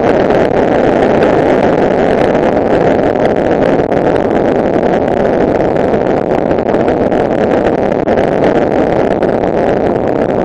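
Honda NTV600 motorcycle's V-twin engine running at a steady cruise, mixed with wind rushing over the microphone at road speed.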